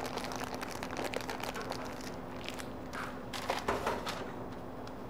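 Rubber spatula scraping and folding meringue into sponge batter in a mixing bowl: soft, irregular scrapes and light taps against the bowl, over a faint steady hum.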